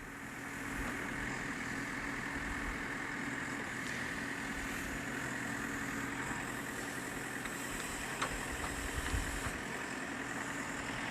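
Backhoe loader's engine running steadily under load while the backhoe arm digs, growing slightly louder about a second in.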